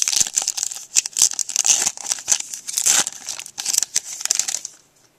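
Foil wrapper of a 2008 Upper Deck Timeline baseball card pack being torn open and crinkled by hand, a dense crackle that stops about four and a half seconds in.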